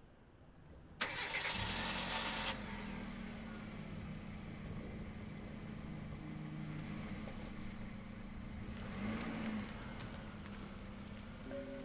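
A Hyundai Accent hatchback's engine being started: a burst of starter cranking about a second in catches into a steady idle. Near the end the engine note lifts briefly as the car pulls away.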